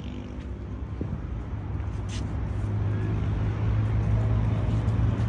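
Low, steady motor hum, like a vehicle engine running, growing louder through the first few seconds.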